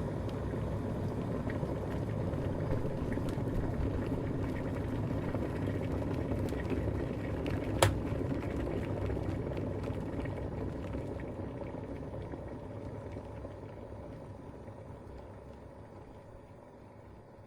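Digital electric kettle at a full boil. About eight seconds in there is a single sharp click as the kettle switches itself off, and the boiling then dies away gradually.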